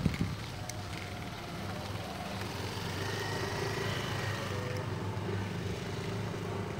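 A motor vehicle engine running steadily, growing louder about two seconds in and staying up as it passes. A single sharp knock comes right at the start.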